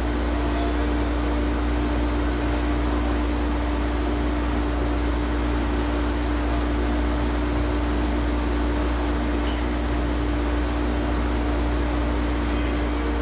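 Hydrotherapy pool's pump running: a steady hum with an even rushing noise underneath.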